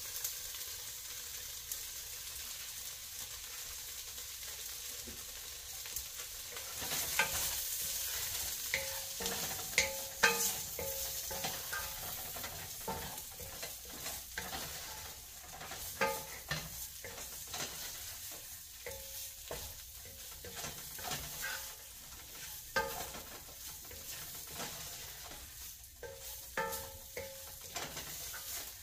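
Tofu, red onion and spices sizzling in oil in a pot as the spices toast. From about seven seconds in, a wooden spoon stirs and scrapes through them, knocking against the pot again and again at an uneven pace.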